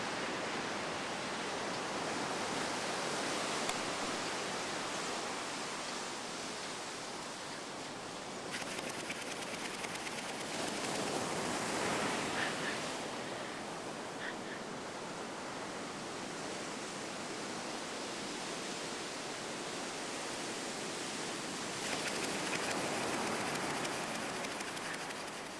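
Ocean surf washing on the beach as a steady hiss, swelling twice, about a third of the way in and near the end.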